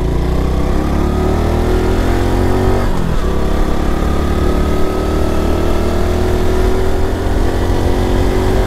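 Honda Pop 110i's small single-cylinder four-stroke engine pulling away under acceleration, its pitch rising. About three seconds in the revs drop briefly, as at a gear change, then climb slowly again.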